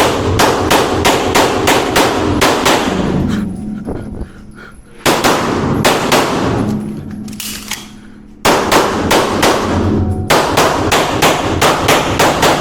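Beretta 92 9mm pistol firing rapid strings of shots, echoing in an indoor range, with brief lulls about four and eight seconds in between strings.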